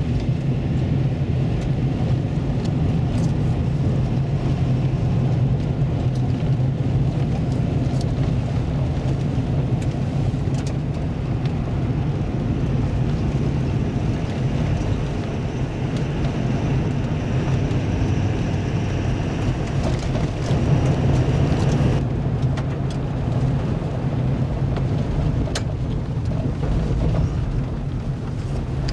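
Vehicle cabin noise while driving on a gravel road: a steady low engine and tyre rumble with road hiss, and a few sharp clicks. About 22 seconds in, the hiss drops away while the rumble carries on.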